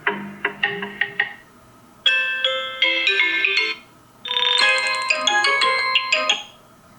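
Vivo Y52 5G stock ringtones played one after another: three short melodic clips, each a run of quick bright notes lasting one to two and a half seconds, separated by brief pauses.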